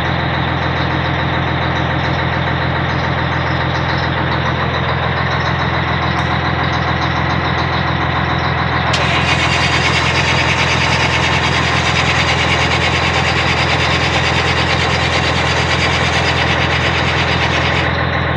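A heavy diesel truck engine running with a steady low drone. About nine seconds in, a harsher hissing layer joins on top.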